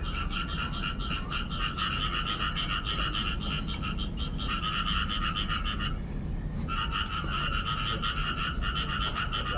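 Loud, rapid pulsing animal calls in a continuous chorus, breaking off briefly about six seconds in and then resuming.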